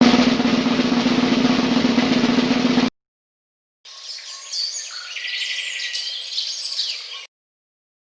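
Snare drum roll for about three seconds, cutting off abruptly. After a second's gap comes a separate clip of high, quick chirping.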